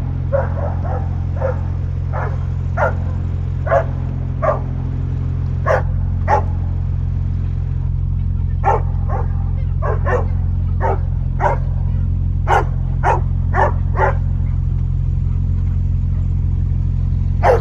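Bernese mountain dog barking again and again in short, sharp barks, spaced irregularly with a couple of pauses, over a steady low hum.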